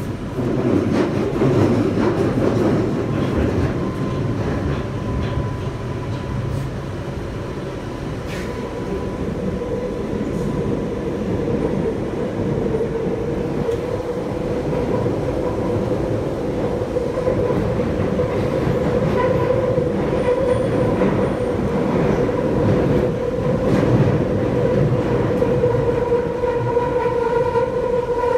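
London Underground Central Line 1992-stock train running in a deep-level tube tunnel, heard from inside the carriage: a dense rumble of wheels and tunnel noise, with a steady motor whine that grows louder through the second half.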